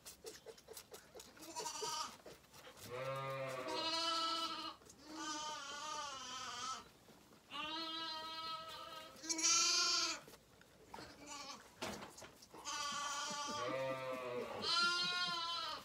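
Zwartbles bottle lambs bleating: a string of about eight wavering bleats, each around a second long, with short pauses between.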